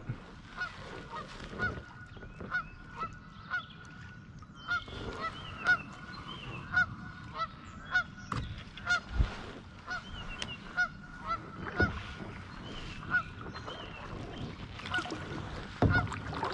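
Canada geese honking over and over, about one or two short honks a second.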